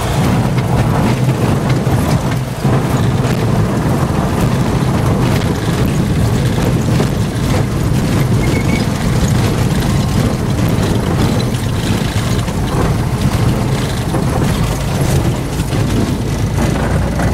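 A single-engine Cessna rolling out on a grass runway after touchdown, heard inside the cabin: a continuous heavy rumble and knocking from the wheels running over the rough turf, over the engine's low drone.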